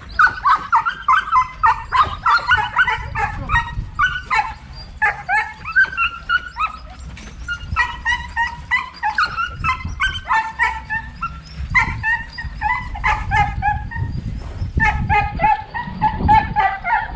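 Dogs barking and yipping over and over, several short high barks a second, in runs broken by brief pauses.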